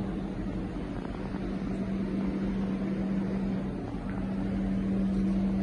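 A steady mechanical hum with a low rumble beneath it, breaking off briefly about four seconds in.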